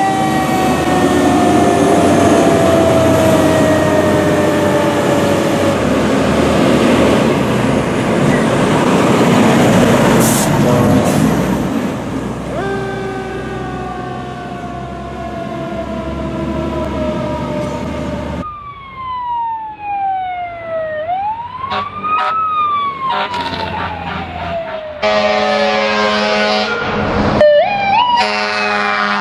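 Fire engine sirens in several short clips cut together. First, a siren slowly winding down over the truck's engine and road noise. Later, an electronic wail siren sweeping down and back up, and near the end a dense, rapidly changing siren.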